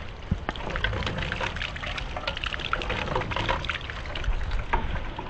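Rainwater pouring out of a metal gutter downspout and splashing onto wet pavement in an irregular, steady gush.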